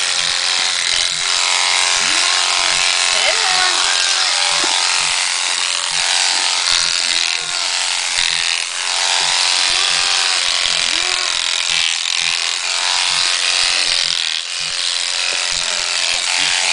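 Corded electric sheep shears running steadily, the cutter buzzing as it works through a sheep's fleece, with a few short dips in loudness.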